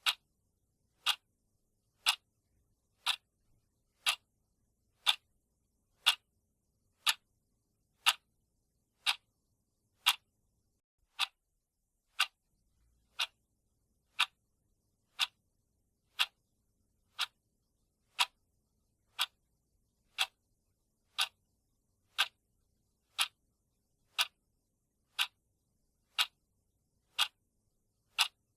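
Clock-tick sound effect of a countdown timer: one sharp tick each second, evenly spaced.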